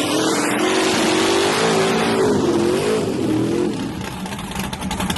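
Nitrous-fed small-block LS V8 drag car at full throttle, a loud high engine note that climbs, wavers, and fades out about four seconds in.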